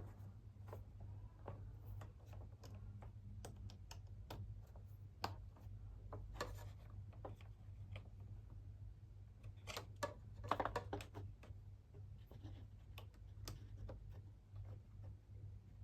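Irregular light clicks and taps from handling the vacuum cleaner's plastic parts and motor lead connectors during reassembly, with a few louder clattering handfuls about six seconds in and again around ten seconds. A steady low hum runs underneath.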